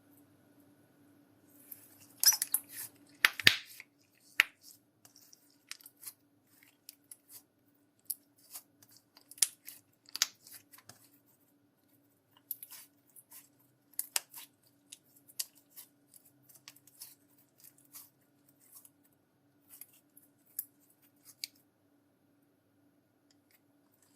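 Slime being kneaded and squished by hand, giving irregular sticky clicks and small pops, with a louder flurry of squelches about two to three seconds in.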